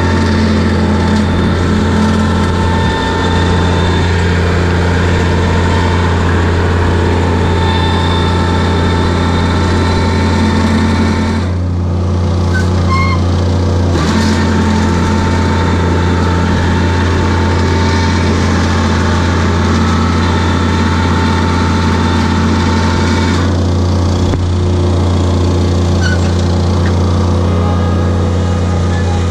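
Small engine of a stand-on turf machine running steadily as it is driven, a constant low hum with a slight shift in tone a couple of times.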